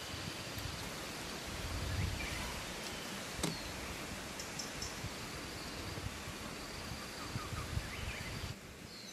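Outdoor forest ambience: a steady rustling hiss with a few faint bird chirps and one sharp click about three and a half seconds in. The background drops quieter about a second before the end.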